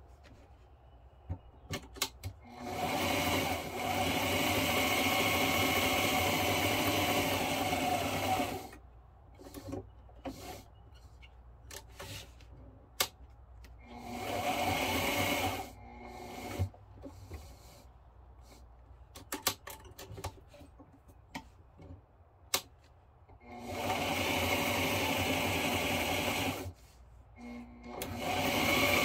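Sewing machine stitching through textured vinyl in four runs of a few seconds each, with pauses between them. The pauses, with scattered clicks, are where the needle stays down and the presser foot is lifted to pivot the work at the corners of a stitched rectangle.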